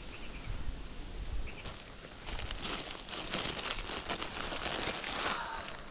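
Plastic bread packaging crinkling and rustling in the hands, starting about two seconds in and dying away near the end.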